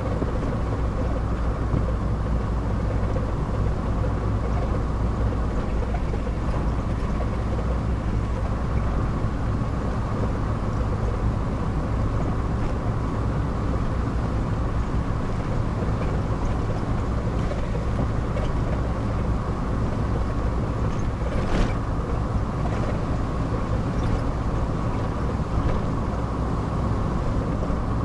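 Car cruising at a steady speed, its engine and road drone heard from inside the cabin, with one short click about three-quarters of the way through.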